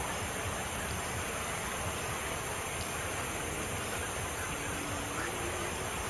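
Steady rushing, hissing noise with no distinct bird calls. A faint low hum comes in about four and a half seconds in and steps up in pitch once.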